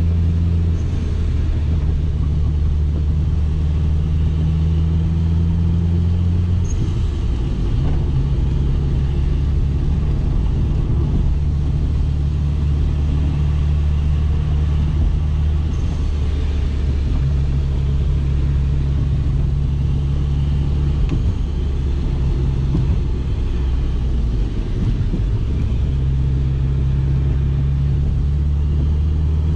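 2004 Subaru Impreza WRX STI's turbocharged flat-four engine running steadily under way while climbing, its note shifting up or down in steps a few times.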